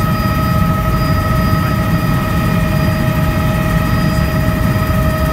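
Bell 206 JetRanger helicopter in flight, heard from inside the cabin: a steady high turbine whine from its Allison 250 turboshaft over a loud, low rotor and engine rumble.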